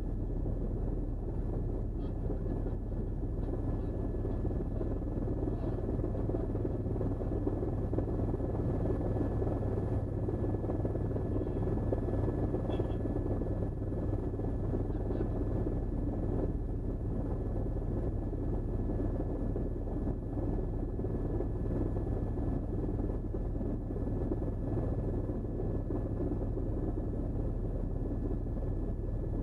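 Steady low drone of a news helicopter's rotor and engine, heard from inside the cabin through the reporter's microphone.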